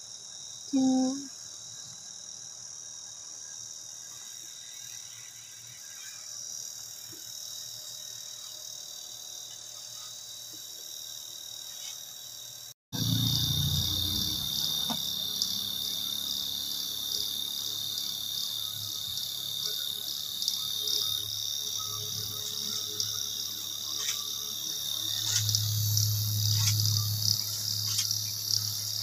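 Crickets chirping in a steady, high-pitched chorus. The sound drops out briefly about halfway, then comes back louder.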